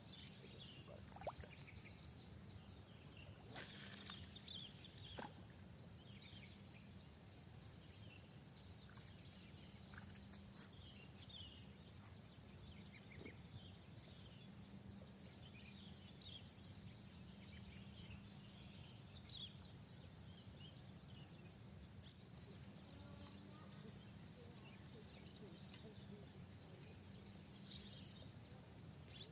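Faint outdoor ambience: many short, high bird chirps scattered throughout, densest in the first half, over a steady low background hum.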